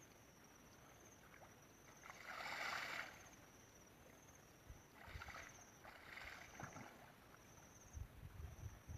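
Water splashing and sloshing in a few separate bursts, the longest and loudest about two seconds in, over a faint, steady, high, wavering insect trill.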